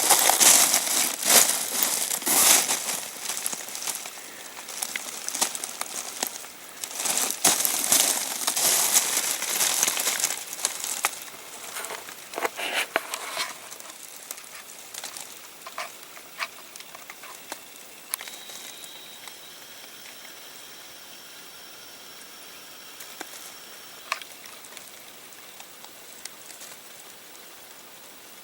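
Runoff water running into a storm drain: a crackly splashing rush full of small clicks that drops about halfway through to a quieter steady trickle with occasional drips.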